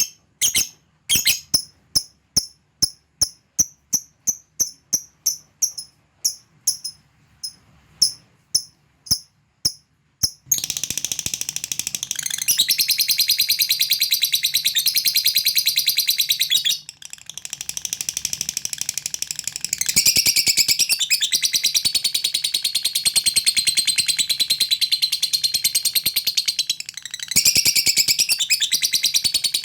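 Lovebird giving a string of short, sharp chirps, about two a second. About ten seconds in it breaks into a long, continuous, rapid chattering trill (the 'ngekek'), which stops briefly twice before carrying on.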